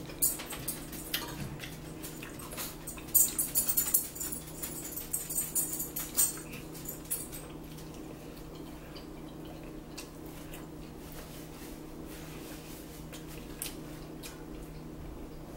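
Close-up eating sounds: a fork clicking and scraping in a ceramic salad bowl, with chewing, dense for the first seven seconds or so, then tapering to a few faint ticks over a steady low hum.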